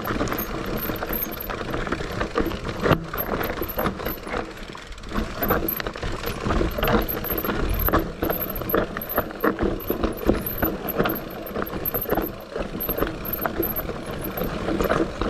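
Mountain bike rattling and clicking as it rolls down a steep, rough trail, with frequent irregular knocks from bumps.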